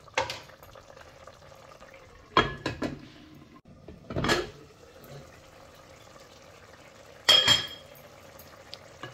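Glass pot lid knocking and clinking against a cooking pot several times, the loudest clink with a short ring near the end, over the faint steady noise of the pot simmering.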